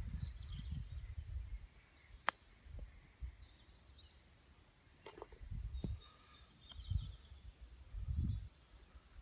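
A 9 iron striking a golf ball on a chip shot: one sharp click about two seconds in. Gusts of wind rumble on the microphone, with birds chirping faintly.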